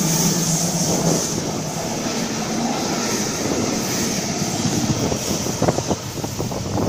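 Double-deck electric passenger train departing, running past and away along the rails with a dense rolling rumble and some clickety-clack. A low steady hum and a high hiss from the train stop within the first second or so. Wind buffets the microphone toward the end.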